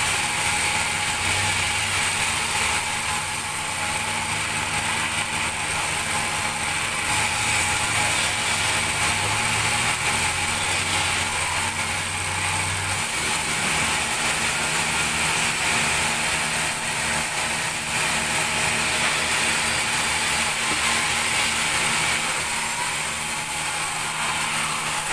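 Large sawmill band saw running steadily: a continuous mechanical whir with thin steady high tones over it. A low hum underneath stops about halfway through.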